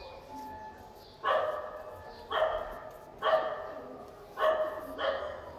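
A dog barking five times at uneven intervals of about a second, each bark starting sharply and dying away briefly.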